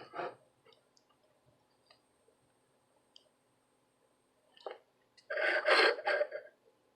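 A few faint, scattered clicks, then a sharper click and about a second of louder handling noise near the end.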